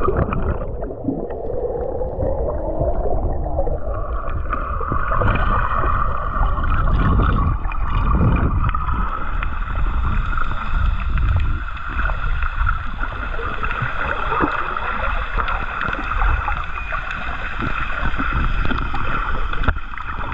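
Underwater sound of a boat's motor: a steady whine with several overtones that comes in about four seconds in and holds, over low rumbling water noise. Bubbles rush past at the start.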